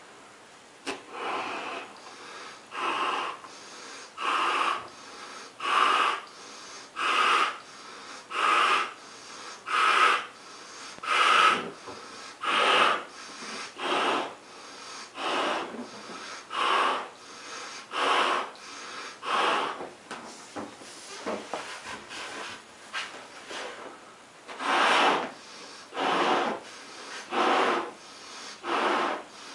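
A 16-inch pearl purple latex balloon being blown up by mouth: repeated breaths pushed into its neck, about one every second and a half, as the balloon swells.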